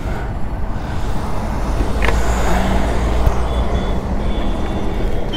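Bajaj Pulsar N250's single-cylinder engine idling steadily in neutral.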